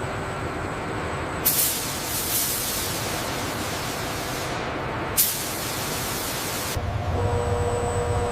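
Steady machinery noise with two long hissing releases: the first about a second and a half in, lasting some three seconds, and a shorter one about five seconds in. Near the end a low hum with a steady whine starts up.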